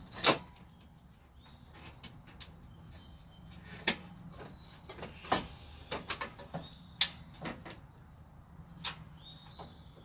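Scattered clicks and knocks of plastic and metal car parts being handled and fitted by hand, with the sharpest knock just after the start.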